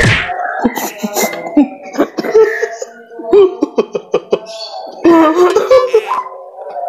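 A person coughing several times in short, sudden bursts, the first and loudest right at the start.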